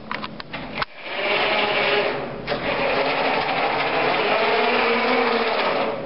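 Electric drive motors and gearboxes of a FIRST Robotics Competition robot whirring steadily as it drives across carpet, after a few quick clicks in the first second.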